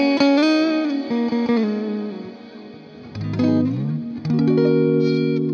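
Electric guitar played through Amplitube's amp simulation, its notes ringing out into a long ambient wash from two plate reverbs layered on the effect sends. Single notes fade slowly, then a falling run of low notes about three seconds in leads to a sustained chord.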